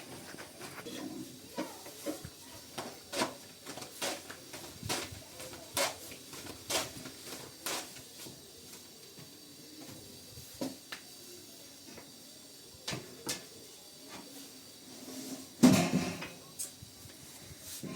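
Scattered light knocks and clicks of things being handled and set down, with a louder clatter about sixteen seconds in.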